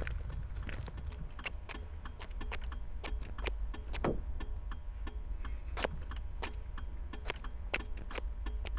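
A car's hazard-light flasher ticking: repeated sharp clicks, a little under two a second, over a low steady rumble.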